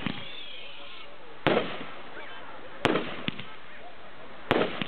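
Aerial fireworks going off in a series of sharp bangs, about one every one and a half seconds, with a weaker pop between two of them.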